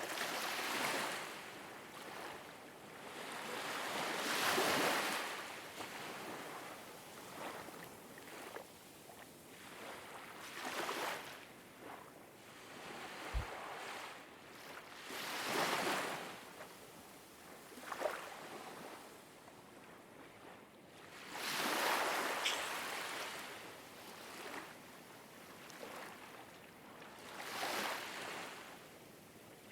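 Ocean waves washing in, each one swelling and fading over a second or two, every few seconds. There is a single brief low knock about halfway through.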